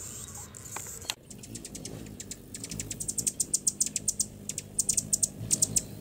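Perched hummingbird making a series of short, high-pitched chips, sparse at first and then coming in quick runs of several a second.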